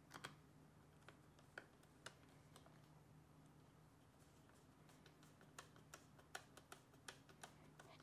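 Faint, irregular small clicks from a precision screwdriver turning the tiny retaining screw that holds an M.2 NVMe SSD in a laptop, coming more often in the second half, over a low steady hum.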